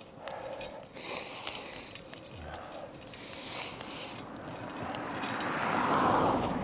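A car passing by, its road noise swelling to a peak about six seconds in and starting to fade. Before that, road noise and light rattling clicks from the ride.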